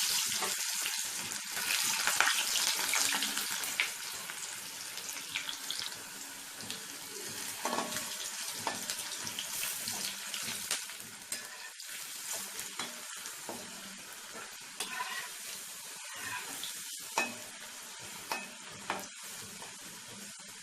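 Squeezed, salted potato pieces sizzling in hot oil, a dense hiss that is loudest just after they go in and settles lower after a few seconds, with occasional clicks and pops.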